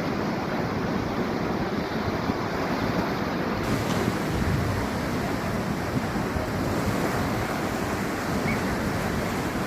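Sea surf washing steadily onto a beach, an unbroken rush of water without distinct single crashes, with a low fluttering rumble of wind on the microphone underneath.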